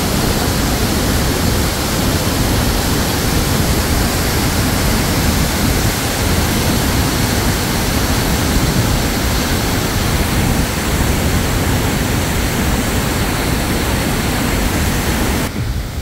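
Waterfall: a steady, loud rush of falling water that drops off abruptly near the end.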